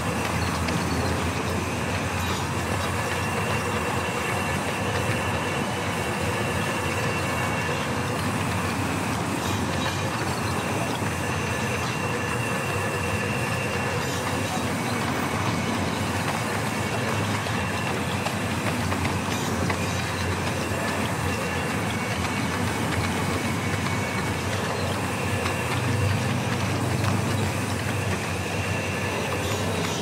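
Band sawmill running and cutting through wooden planks: a steady mechanical din with a thin high whine, swelling briefly near the end.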